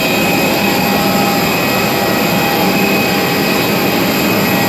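Steady turbine whine and rush from a parked jet airliner at the stand: several high whining tones held over an even, constant noise.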